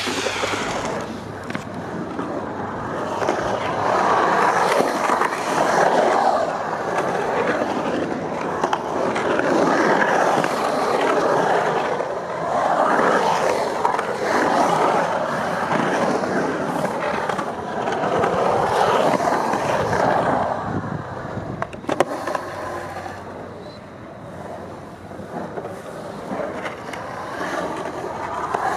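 Skateboard wheels rolling on the concrete of a skatepark bowl, a rough rumble that swells and fades again and again as the board carves up and down the walls. A single sharp knock comes about three-quarters of the way through.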